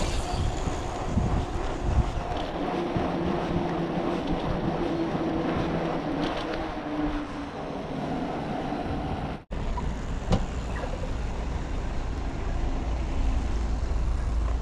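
Wind rushing over the microphone of a camera on a moving bicycle, a steady rumbling noise. It drops out for an instant about nine and a half seconds in and comes back with a heavier low rumble.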